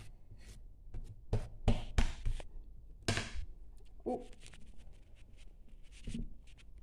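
A wooden spoon knocking and scraping on a hard kitchen countertop while spreading thick croquette dough: a handful of sharp knocks and short scrapes about one to three and a half seconds in, then lighter clicks.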